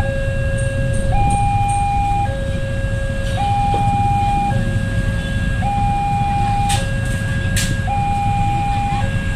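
Railway level-crossing warning alarm sounding its electronic two-tone signal, a low note and a high note taking turns, each held just under a second: a train is approaching the crossing. Underneath is the low rumble of waiting traffic.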